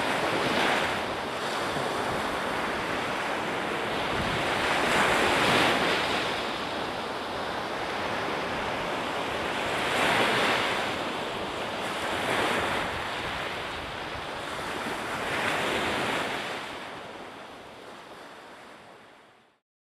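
Ocean waves breaking on the beach, surging louder every few seconds, with wind on the microphone. The sound fades out over the last few seconds.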